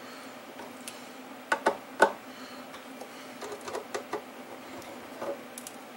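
Handling clicks and knocks as the Apple Disk II drive's case and a hand tool are worked on a bench: three sharp clicks about a second and a half to two seconds in, then a few lighter taps, over a faint steady hum.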